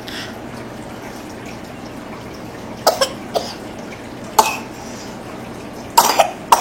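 A few short coughs come in separate bursts: a pair about three seconds in, one more about a second later, and a cluster near the end.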